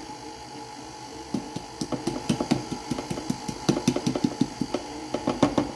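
KitchenAid stand mixer running with its dough hook through bread dough that is starting to come together. A steady motor hum sits under a rapid, irregular run of knocks and clatters from about a second in.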